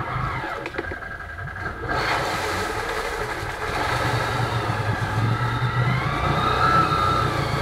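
Can-Am Renegade 800 quad's V-twin engine running under throttle as it ploughs through deep river water, with water rushing and splashing around it. The engine eases off about a second in, picks up again with the rush of water a second later, and revs higher near the end.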